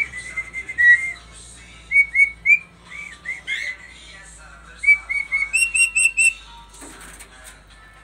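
Caged myna whistling: a series of short, clear, upward-curving whistled notes in quick groups, ending in a loud run of four high notes about six seconds in.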